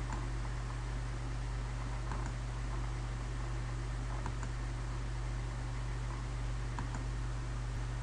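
Steady low hum and hiss of background noise, with a few faint computer mouse clicks spread through it.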